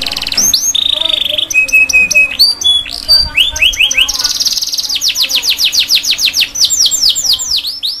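Domestic canary singing a varied song: a fast rolling trill, a held whistle, short rising and falling notes, then from about halfway a quick run of down-slurred notes, about five a second.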